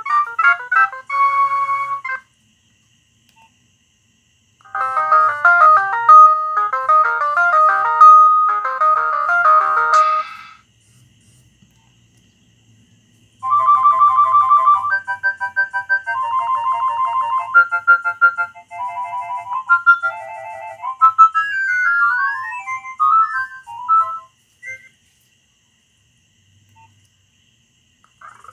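Nokia 6010 mobile phone playing its built-in ringtones: three short electronic melodies one after another, separated by pauses, the last one with some sliding notes.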